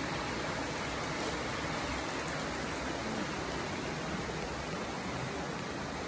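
Steady, even rush of a waterfall's falling and running water.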